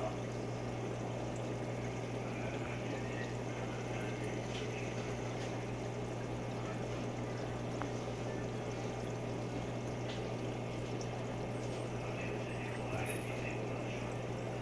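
Aquarium filter running: a steady trickle and splash of water over a low, steady hum.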